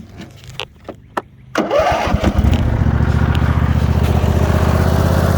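A few light clicks, then about a second and a half in the Cub Cadet RZT zero-turn mower's 22-horsepower Briggs & Stratton V-twin engine is cranked by its starter. It catches quickly and settles into a steady run.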